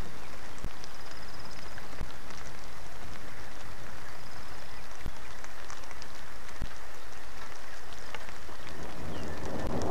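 Steady rain falling, with scattered drops ticking close by. A short high trill sounds twice, and a louder, low pitched sound swells up near the end.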